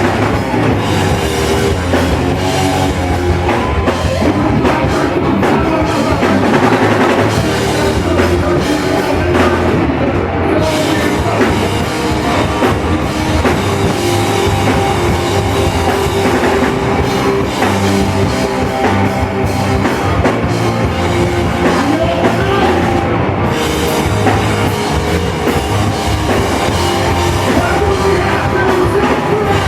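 Rock band playing loudly and steadily, with a drum kit.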